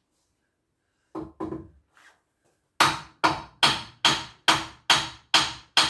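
A hammer striking a metal front-suspension part, tapping it up into place: a couple of light knocks, then a steady run of sharp ringing blows about two and a half a second.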